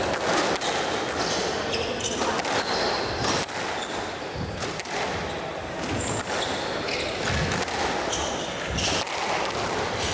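Squash rally: the ball repeatedly striking racquets and the court walls, with short high squeaks from the players' shoes on the wooden floor.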